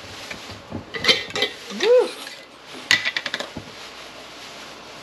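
Glass mason jars and a metal jar lid clinking and clattering on a stone countertop in two quick bursts while a flour slurry is being mixed, with a brief pitched sound that rises and falls about two seconds in.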